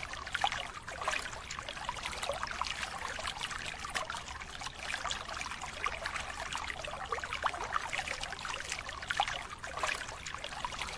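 Water trickling and splashing around a seine net being hauled through the shallows, a steady wash of small irregular splashes and drips.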